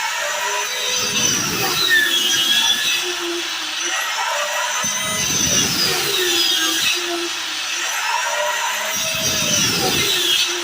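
Electric woodworking power tool running, its pitch sagging and recovering in repeated passes about every four seconds.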